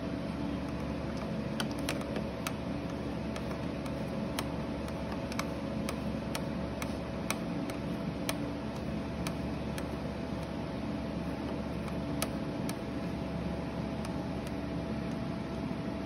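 Steady room hum with faint, scattered small clicks as a metal nut is threaded by hand onto a stud on a radio's front panel.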